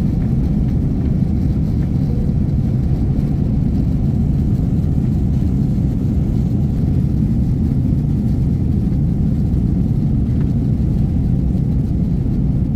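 Steady low rumble inside an airliner cabin: engine and airflow noise, even and unchanging, stopping abruptly at the end.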